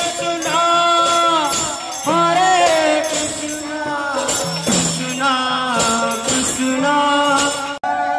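Group of devotees singing a devotional nama sankirtan chant, with jingling hand cymbals keeping the rhythm. The sound drops out for an instant near the end.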